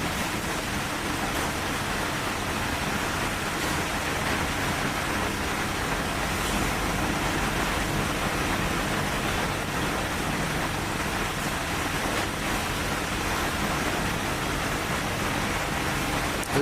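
Steady, even rushing noise, like fans or moving air, that cuts off suddenly at the end.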